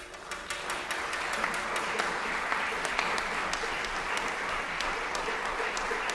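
Audience applauding: dense clapping that breaks out suddenly and holds steady.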